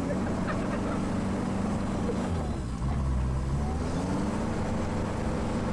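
Side-by-side off-road buggy's engine running under load as it drives over rough field ground, heard from inside the open cab. The engine note dips about two seconds in, then rises again as it revs back up.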